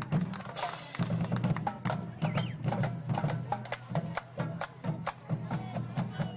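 Marching band drumline playing a cadence: rapid sharp stick clicks and drum hits over a steady pulsing low drum beat.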